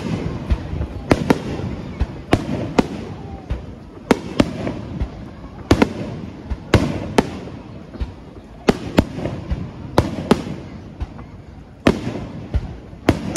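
Aerial firework shells bursting overhead in a rapid, irregular string of sharp bangs, about one or two a second.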